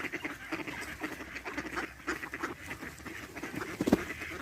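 A flock of ducks quacking, many short calls in quick succession. A single sharp thump sounds near the end.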